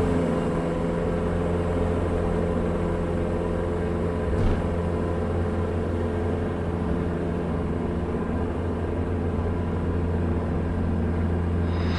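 Diamond DA40 single-engine light aircraft's piston engine and propeller at full takeoff power, a steady drone heard from inside the cabin, with a single click about four and a half seconds in. Right at the end a brief high squeal, the stall warning horn, sounds as the airplane lifts off at about 10 knots above stall speed.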